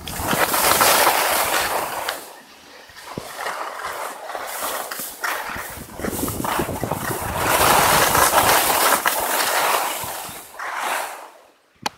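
Skis hissing and scraping over packed snow through a series of turns, the swoosh swelling and fading about four times.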